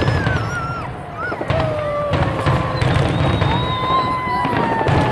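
Fireworks going off: several whistles at once, long and sliding slowly in pitch, with scattered crackling pops.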